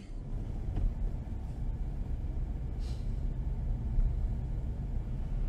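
Steady low rumble of a car driving on a snow-covered road: engine and tyre noise heard inside the cabin.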